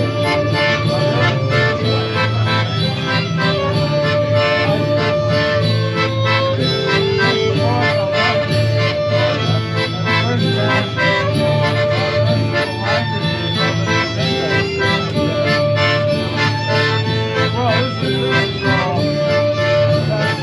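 Live folk band playing an instrumental passage: accordion carrying the melody, with strummed guitar, fiddle and a sousaphone bass line underneath.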